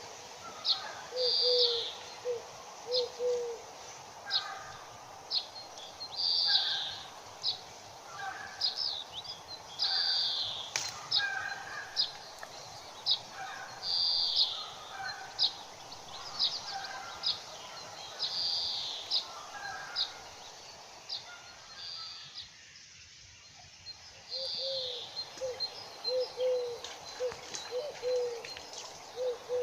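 Birds chirping and calling, with short high notes repeating about once a second. A dove coos in a low, repeated phrase at the start and again near the end.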